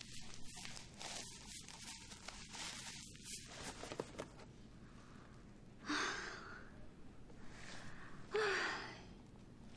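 Paper packaging rustling and crinkling as a parcel is unwrapped, then a woman gives two breathy sighs a couple of seconds apart, the second the louder.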